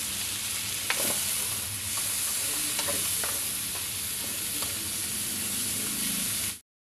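Pork and vegetables sizzling in a hot wok as they are stir-fried, with the spatula now and then clicking and scraping against the pan. The sizzle cuts off suddenly near the end.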